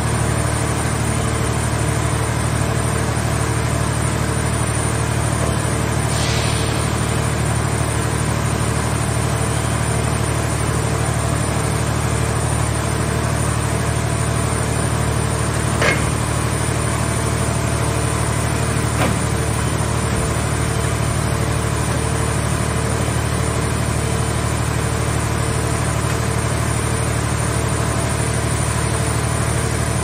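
Scrap car shell baler's hydraulic power unit running with a steady drone while its grab arm works. A brief hiss comes about six seconds in, a sharp metallic clank at about sixteen seconds, and a lighter one about three seconds later.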